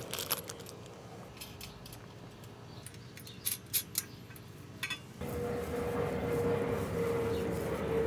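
Scattered small metal clicks and clinks as loose steel bolts and nuts and the cage's metal frame bars are handled. About five seconds in, a steady hum with a faint high tone comes in abruptly.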